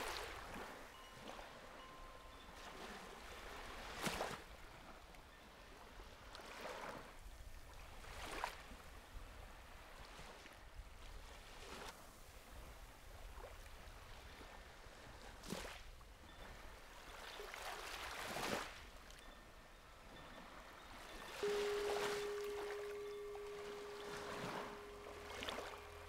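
Small waves lapping and washing in on a sandy beach, in swells every few seconds. Near the end a Tibetan singing bowl is struck and rings on with a steady tone.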